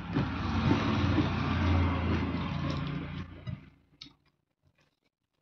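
Engine noise from a passing motor vehicle, with a steady low hum under it, holding loud for about three seconds and then fading away. A few small clicks follow near the end.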